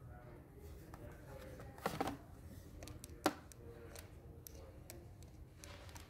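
Plastic clicks and knocks from a Black & Decker PV1420L handheld vacuum being handled with its motor off: a short cluster about two seconds in and a single sharp click a little after three seconds, as parts such as the dust bowl are worked loose.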